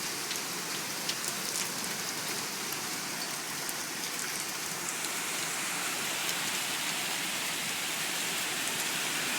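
Heavy rain pouring down: a dense, steady hiss of rainfall with scattered louder drops ticking close by.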